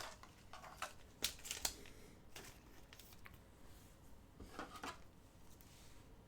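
Faint, scattered clicks and short rustles of trading cards and their plastic sleeves being handled and sorted.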